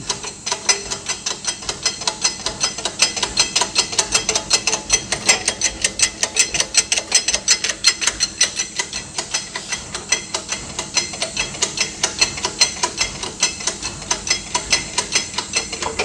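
Hydraulic shop press being hand-pumped, its jack mechanism clicking regularly about four times a second with a metallic rattle, as it builds pressure to force a stuck wheel-bearing race off the hub held in a bearing splitter.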